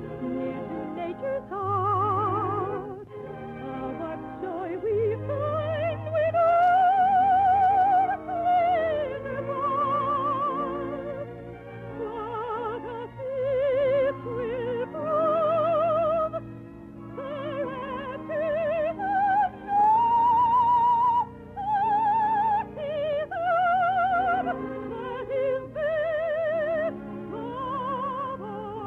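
Operatic soprano singing long, high notes with wide vibrato over orchestral accompaniment, heard through an old radio recording with little treble.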